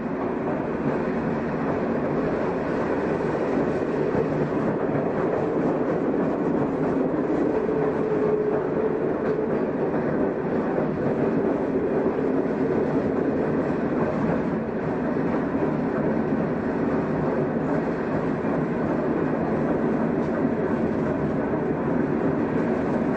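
Shin-Keisei car 252, a nose-suspended-drive (tsurikake) electric train, running along the track. Its wheels make a steady running noise on the rails, under a faint, steady hum from the traction motors and gearing.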